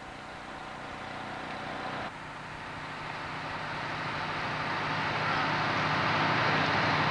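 Fire truck engine running steadily with a broad hiss over it, growing gradually louder.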